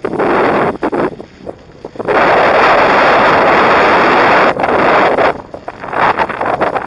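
Wind buffeting the microphone of a 360 camera on a moving electric unicycle, coming in gusts, with one long, strong rush through the middle.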